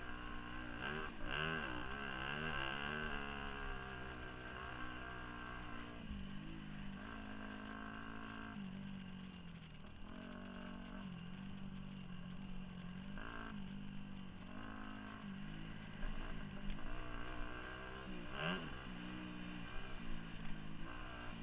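2002 Yamaha YZ250F's four-stroke single-cylinder engine running under load on the trail, its pitch rising and falling repeatedly with the throttle. A few sharp knocks in the last few seconds.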